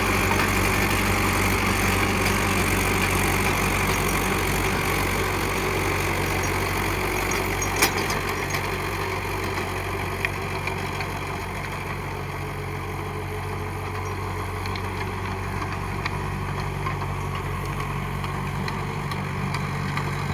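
Mahindra 575 DI SP Plus tractor's four-cylinder diesel engine running steadily, with a sharp click about eight seconds in and another about ten seconds in.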